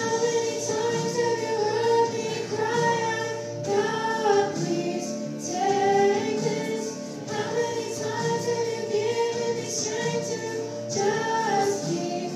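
Two female voices singing a Christian song together, one through a microphone, over a steady instrumental accompaniment of held chords.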